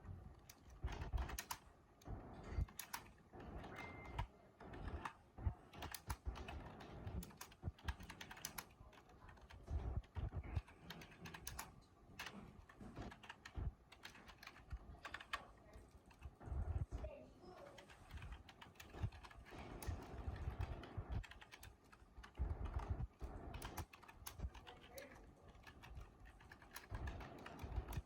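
Limedie computer keyboard being typed on: a steady run of irregular key clicks, some louder strokes standing out.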